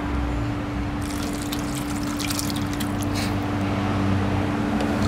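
Pla ra (fermented fish liquid) being poured into a metal cooking pot, splashing and trickling onto the herbs, the pour picking up about a second in. A steady low hum sits underneath.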